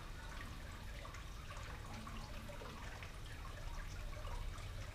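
Water trickling and dripping steadily from a garden fountain, over a low steady hum.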